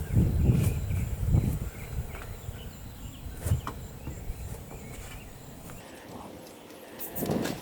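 Irregular low thumps and scuffs in the first second and a half and again near the end, with scattered light clicks and a quieter stretch in between.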